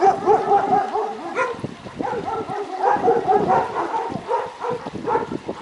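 Dog barking rapidly, several short barks a second with no pause.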